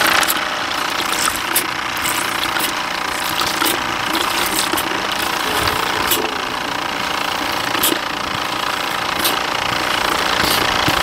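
Small battery aerator pump running steadily, pushing air that bubbles through the dyed water in a minnow bucket, with scattered small clicks and splashes as a hand works in the water.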